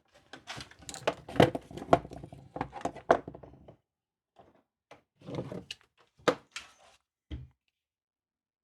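Clicks, knocks and light rattling from hands handling the RC truck's parts and wiring: a dense spell of clatter, a short pause, then a second spell ending in one low thump.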